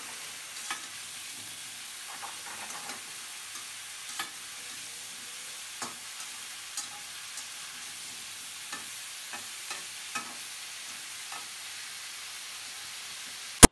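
Cauliflower florets and potato pieces frying in a little oil in a metal karahi with a steady sizzle, while a slotted metal spatula stirs them, scraping and tapping against the pan every second or so. A single sharp click right at the end.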